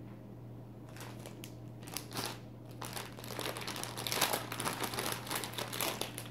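Clear plastic food packaging being handled and crumpled by hand, giving irregular crinkling that starts about a second in and grows busier toward the end.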